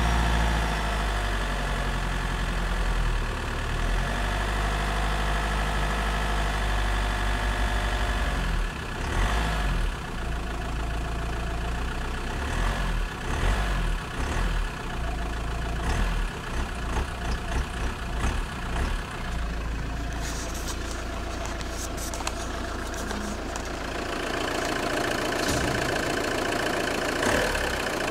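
Fiat 1.9 JTD 105 turbodiesel engine idling cold, with an irregular creaking noise coming and going for several seconds in the middle; the creak appears only while the engine is cold.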